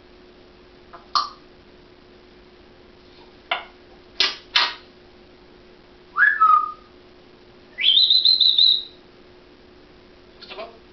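African grey parrot making a few short sharp clicks and calls, then whistling twice: a short whistle that drops to a steady note about six seconds in, and a longer high whistle that rises and holds for about a second.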